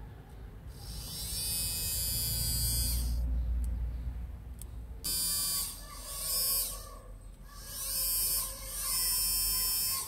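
Small brushed DC motor run in five short bursts as power leads are touched to its terminals: a high whine that climbs in pitch as it spins up and stops each time contact is broken. The first run lasts about two seconds, the others about a second each.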